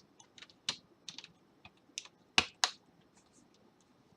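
Small plastic clicks and taps as the back cover of a Sharp Aquos phone is pressed and snapped into place. The clicks come irregularly, with the two loudest close together about two and a half seconds in.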